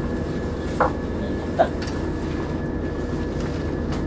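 Diesel passenger train running at speed, heard from inside the carriage: a steady rumble of engine and wheels on the rails. There are two brief squeaks, about one second and one and a half seconds in.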